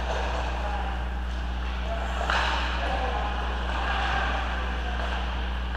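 Indistinct voices over a steady low hum, with a brief louder swell a little before the middle.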